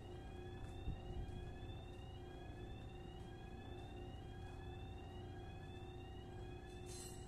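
Rotork electric valve actuator's motor running with a steady hum as it drives the valve toward fully closed. Over it, a rising whistle-like tone repeats about once a second, and there is a single knock about a second in.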